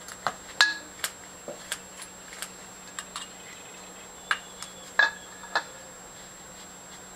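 Scissors snipping fresh oat tops inside a glass jar: irregular sharp snips and clicks of the blades against the glass, some ringing briefly, with a short pause midway.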